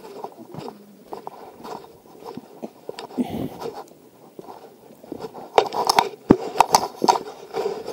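Footsteps scuffing on a dusty trail and then stepping down stone stairs, with louder, sharper steps coming two or three a second from about halfway through.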